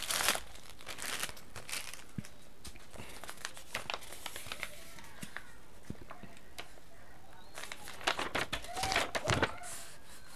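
Paper crinkling and tearing as an invoice stuck to a cardboard box is pulled free, in bursts: a short one at the start, a few scattered crackles in the middle, and a longer, louder bout near the end.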